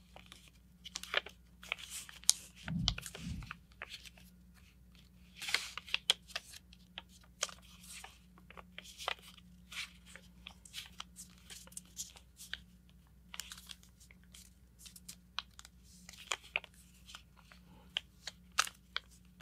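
A sheet of paper being folded and creased by hand, with irregular crinkles, rustles and small crackles as the layers are rolled over and pressed flat. A soft low thump about three seconds in.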